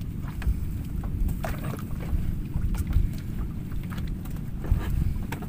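Wind rumbling on the microphone, with scattered short clicks and rustles of a fishing net being hauled and handled at the side of a boat.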